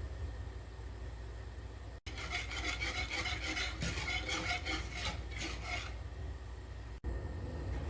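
Fast rhythmic stirring of a mixture in a bowl, about five strokes a second, lasting about five seconds and starting and stopping abruptly at edit cuts, over a low steady hum.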